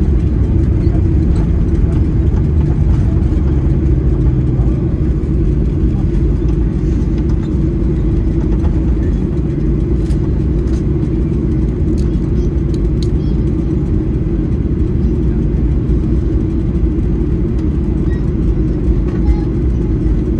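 Steady low rumble of a moving vehicle, with a few faint ticks around the middle.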